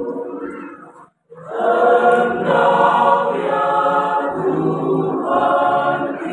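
Mixed church choir singing in parts, unaccompanied. The singing dies away about a second in, breaks off for a moment of silence, then comes back in full.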